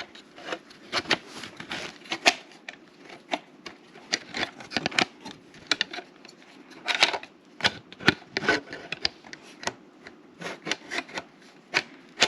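Small hard plastic parts being handled and fitted together, with irregular clicks, taps and rubbing as a protective cover is worked onto a compact drone.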